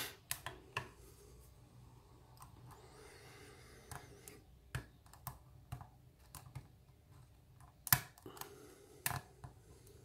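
Lock pick and tension wrench working the pins of a pin-tumbler lock cylinder during single-pin picking: scattered small clicks and ticks, with a sharper click about eight seconds in.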